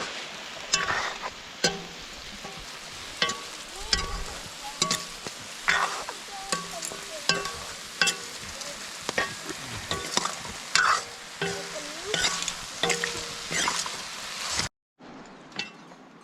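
Food frying and sizzling in a pan while it is stirred, with a utensil clinking and scraping against the pan many times. The sound cuts off abruptly near the end.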